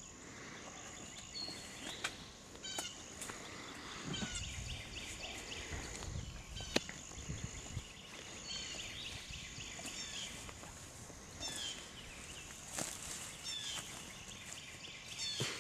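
Woodland songbirds chirping and singing over a quiet background, with rustling in the leaves in the middle and a single sharp click about seven seconds in.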